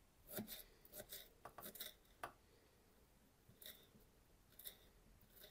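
Faint knife strokes chopping fresh parsley on a wooden cutting board: a quick, uneven run of chops through the first two seconds or so, then a couple of lighter taps.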